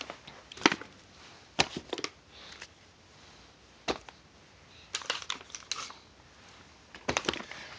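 Cardboard firework boxes and packaging being handled and set down: scattered knocks and rustles, some single and some in quick clusters about five and seven seconds in.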